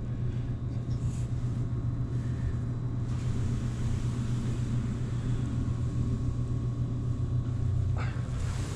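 A steady low mechanical hum with a few faint steady tones above it. A broader rush of noise joins about eight seconds in.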